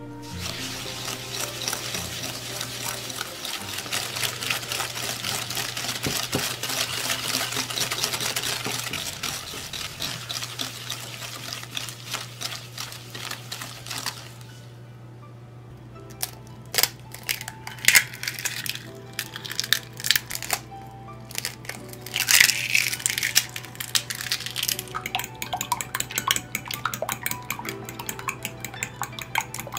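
Wire whisk beating butter and sugar in a glass bowl: fast, even scraping strokes against the glass for about fourteen seconds, whipping the mixture well to give the cake volume. After a short lull comes a run of sharper, irregular clicks and taps as eggs are beaten in a second glass bowl.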